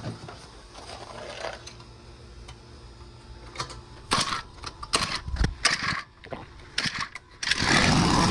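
Clicks and small rattles as the controls on a Predator 1-inch gas water pump's engine are set for starting. About seven seconds in, a loud burst of noise comes as the engine is pull-started.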